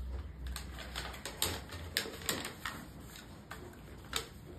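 About a dozen light clicks and taps at irregular intervals, most of them in the first three seconds and one more near the end.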